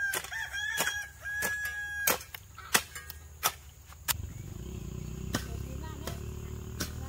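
A rooster crowing once, a long call held for about two seconds, over repeated sharp knocks like chopping. About four seconds in, a steady low hum starts.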